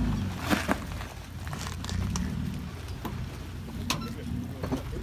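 Toyota Tacoma pickup's engine running at low revs as it crawls over rocks, with scattered sharp cracks and crunches of rock under the tyres.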